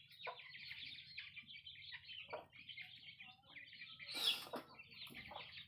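A brood of young chicks peeping continuously in high, rapid chirps. There is a brief louder, noisy burst about four seconds in.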